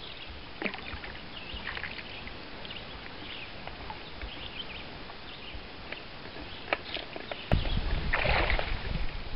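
Light splashes and drips of lake water as a brook trout is let go by hand in shallow water. About seven and a half seconds in, a sudden low rumble of handling on the microphone starts, with a louder slosh of water just after.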